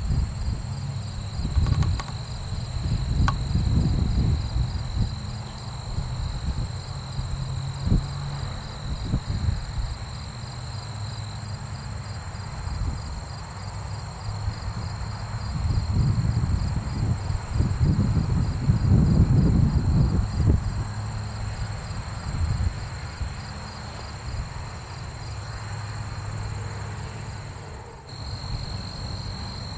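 Insects trilling in a steady high drone over gusty wind rumble on the microphone, with the faint steady hum of a distant propeller aircraft engine underneath. The wind gusts swell loudest twice, a few seconds in and again past the middle.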